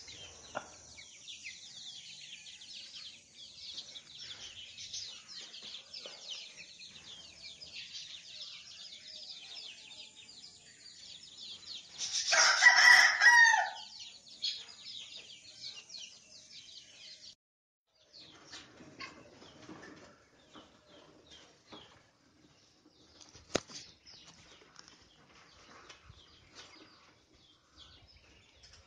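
A rooster crows once, loud, about halfway through, over a constant high-pitched chirping. The chirping stops a few seconds later, leaving only faint scattered sounds.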